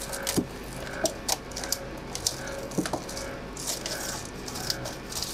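Scattered light metallic clicks and knocks, with rag rubbing, as a Kia J3 diesel's metal cylinder head gasket and parts are handled on a steel workbench. A faint steady hum runs underneath.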